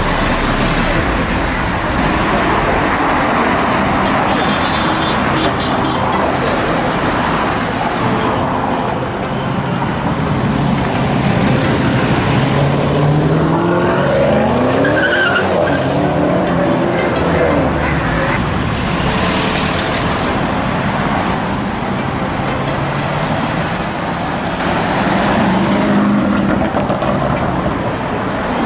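Loud, continuous street traffic with car engines running; around the middle, an engine rises and falls in pitch as a car revs and passes.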